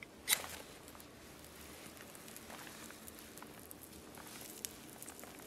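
A ferro rod struck once, a sharp scrape about a third of a second in, throwing sparks onto birch bark tinder; the bark catches and burns with faint, scattered crackles.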